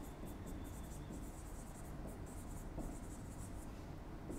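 Felt-tip marker writing on a whiteboard: a run of short, faint, scratchy strokes as letters are written.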